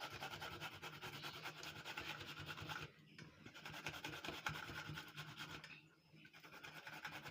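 Carrot being rubbed on the fine holes of a hand grater: quick, even scraping strokes, pausing briefly twice.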